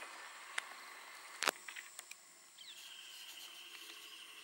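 Quiet open-river ambience aboard a wooden dugout canoe: a sharp wooden knock about a second and a half in, with a few lighter clicks around it, then a steady high-pitched buzz from a little before three seconds on.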